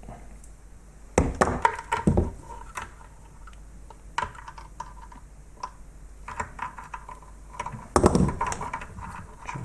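Clicks, knocks and small cracks of a glued plastic sensor housing from a robot vacuum being handled and pried at, with two louder bouts of knocking about a second in and near the end.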